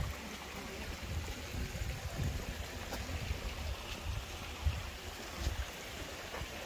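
Steady outdoor hiss with a small stream running, broken by irregular low thumps and rumbles of handling on the microphone as the camera is carried along; the loudest thumps come at the very start and about two-thirds of the way in.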